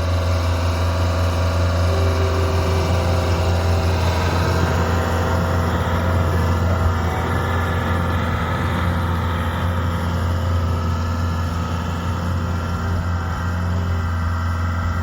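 Bobcat skid steer's engine running steadily with a strong low hum.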